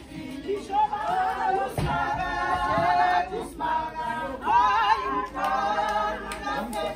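A group of voices singing together unaccompanied, several voices overlapping in held, sliding notes.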